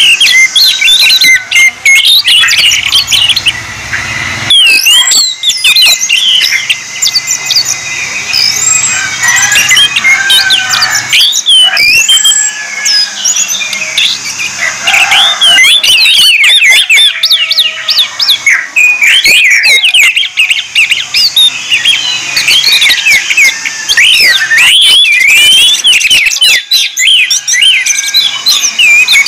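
Orange-headed thrush singing loudly: a fast, unbroken stream of varied whistled phrases, quick up-and-down sweeps and chirps, with a few brief breaks.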